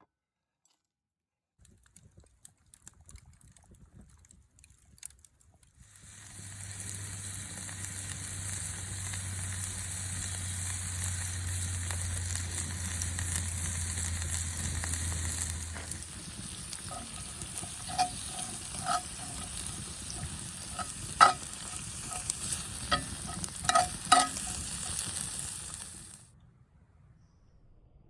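Food sizzling in a pan over a campfire, a steady frying hiss that cuts off suddenly near the end. In its second half a utensil stirs the pan, with several sharp metallic clinks.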